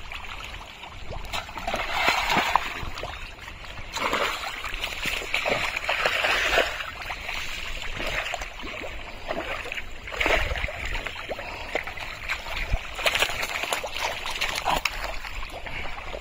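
Hands and arms sloshing and squelching through thick, watery pond mud, with splashes in uneven surges every second or two as the mud is groped through for fish.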